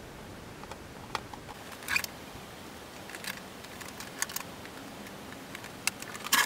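Scattered light clicks and taps of a plastic stormtrooper helmet and its ear cap being handled and turned over, with a louder cluster of knocks near the end as the helmet is moved.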